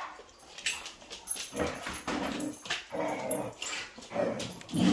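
Dogs playing rough, with play-growls and other short dog vocal sounds coming in irregular bursts. The loudest burst comes near the end.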